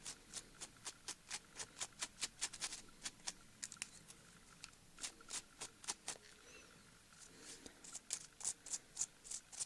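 Fingers and fingernails handling a small foamiran (foam rubber) flower centre: a quick run of faint, crisp clicks and scratches, several a second, pausing for about a second near two-thirds of the way through.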